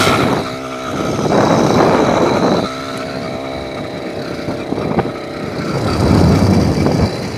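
Wind rushing over a phone microphone on a moving bicycle, with rumbling and handling noise, in two loud gusts about a second in and again near the end. A steady droning tone runs beneath.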